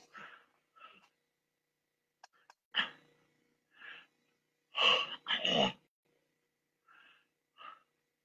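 A man's short vocal noises close to the microphone: a few soft mutters or breaths, two small clicks a little after two seconds, and a loud double burst about five seconds in.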